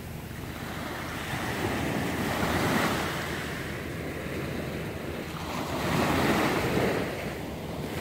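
Small waves breaking and washing up a sandy beach, the surf swelling twice, around three and six seconds in.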